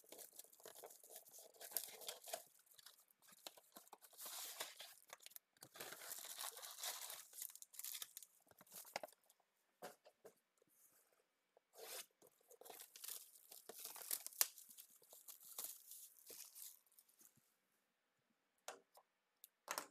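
Cardboard trading card boxes being torn open and foil card packs rustling as they are pulled out and handled: faint, irregular bursts of tearing and crinkling, dying away near the end.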